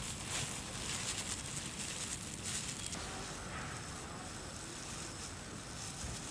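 Outdoor ambience dominated by wind on the microphone: an uneven hiss with low gusty rumbling that shifts about three seconds in.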